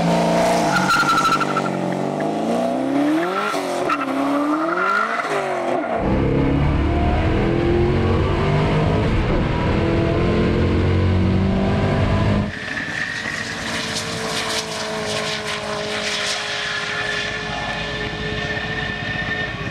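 1969 Camaro's twin-turbo LSX V8 running at full throttle on a half-mile pass. Revs climb and drop twice at gear changes in the first few seconds. From about six seconds in it pulls hard and loud from inside the car, and about twelve seconds in it drops to a quieter, steady drone heard from far down the runway.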